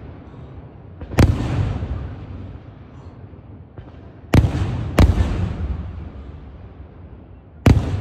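Aerial firework shells bursting overhead: four loud bangs, the middle two close together, each followed by a long rolling echo.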